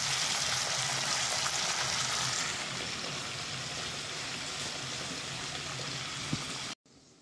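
Sliced onions and tomatoes sizzling as they fry in oil in a kadai, a steady hiss that drops a little in level about two and a half seconds in. A single click sounds shortly before the sound cuts off suddenly near the end.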